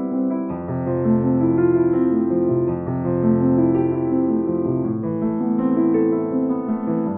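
Background music: a soft piano playing slow held chords with a melody on top.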